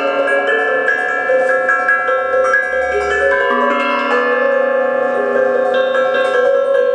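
Mallets striking a set of tuned metal slit-topped percussion pots: a quick run of bell-like notes that ring on and overlap, with a lower note joining about halfway through.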